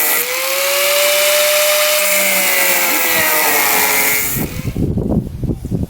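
Angle grinder running against metal, plausibly grinding the welds off a bus's old steel vent cap: a steady high motor whine under a harsh hiss, sagging slightly in pitch under load. It stops about four and a half seconds in, leaving a low gusty rumble of wind on the microphone.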